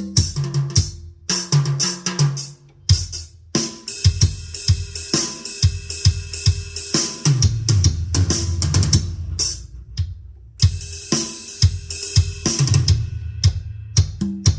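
Drum-kit voice of a Yamaha PSR-S970 arranger keyboard being played: kick drum, snare, hi-hat and cymbal hits in quick succession, with a few short pauses.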